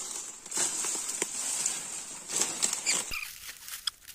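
Rustling and light crackling in dry leaves and undergrowth, over a steady high hiss that cuts off abruptly about three seconds in.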